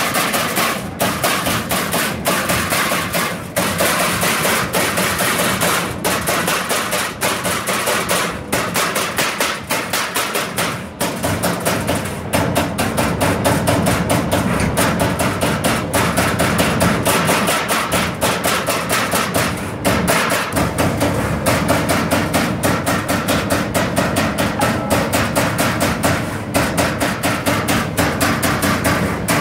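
Accurl 30-ton servo-driven CNC turret punch press punching a steel sheet: a rapid, steady run of sharp punch strokes, several a second, broken by a few brief pauses as the sheet repositions.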